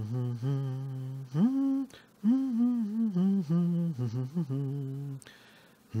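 A man humming a wordless tune: a run of held notes that step and slide up and down, stopping about a second before the end.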